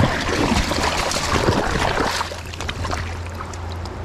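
Water splashing and sloshing as a steelhead thrashes in shallow water at the bank after slipping out of an angler's hands. It is busiest and loudest in the first two seconds, then calms to a lighter churning.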